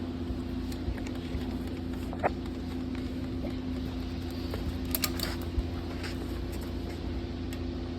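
A steady low mechanical hum, with a few faint clicks from the hand crank of a pulley rig being worked under heavy tension during a rivet pull test.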